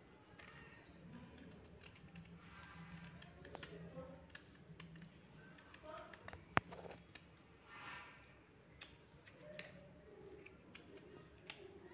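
Faint, scratchy clicks of a knife shaving the peel off a raw green mango, with one sharp click about six and a half seconds in.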